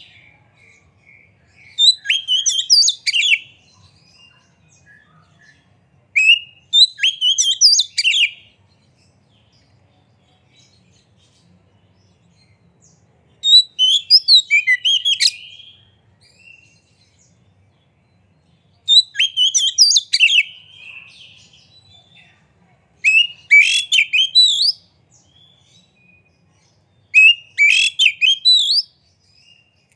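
Male oriental magpie-robin singing: six loud phrases of fast, varied whistles and chatter, each a second or two long, with pauses of a few seconds between them.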